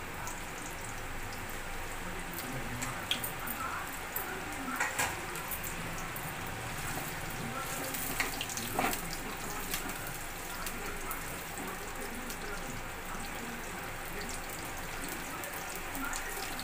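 Chopped onions sizzling steadily in hot oil in a pan, with a few short knocks or scrapes now and then.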